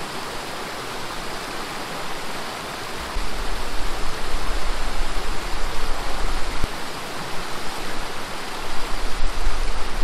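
Steady rush of a monsoon stream and waterfall, an even hiss of fast-flowing water. A deep rumble joins about three seconds in and comes and goes.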